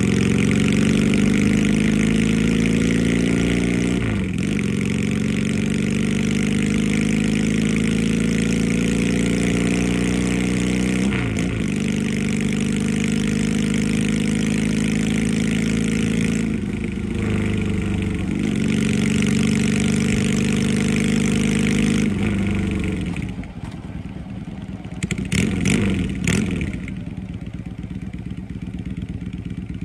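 Yamaha Drag Star chopper's V-twin engine and exhaust while riding, the engine note climbing steadily and breaking three times as it changes up through the gears. Near the end the throttle closes and the engine drops to a lower, quieter running with a few short blips.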